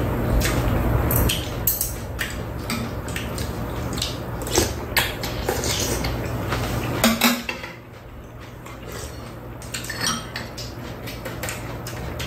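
Metal chopsticks and spoons clinking and scraping against bowls on a metal tray as two people eat, in many short irregular clinks. A low steady hum underneath drops away a little past halfway.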